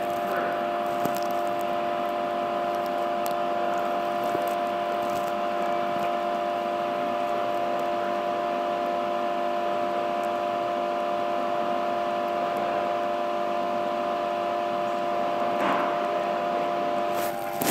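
The cooling fan of an HTP MIG 2000i inverter welder runs steadily at idle: an even whir with a steady hum of several tones. A few faint clicks come through as its wire-speed and voltage dials are turned.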